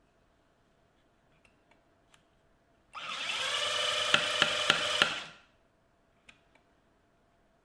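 Restored National EZ6605 cordless impact driver run with no load: its motor whines up, runs for about two seconds with a few sharp clicks, then winds down. Before it, a few faint handling clicks.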